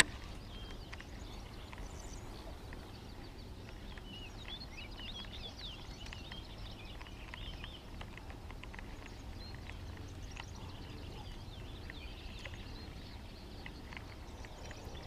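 Faint birds chirping, in scattered short calls that are busiest about four to seven seconds in, over a low steady rumble, with a few small clicks.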